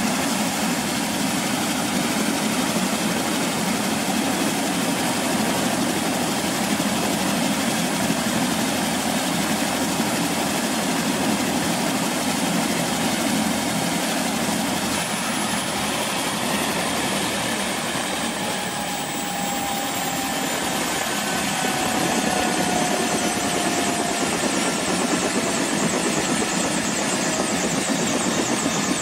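Airbus AS350 B2 AStar helicopter's turbine engine and main rotor running on the ground, a steady whine over a dense rush. From about halfway, several whine tones slide slowly downward as the turbine winds down.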